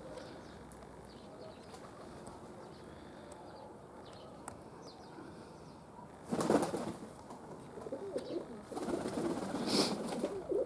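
Domestic pigeons cooing, starting about two-thirds of the way in, after a short loud burst of noise about six seconds in.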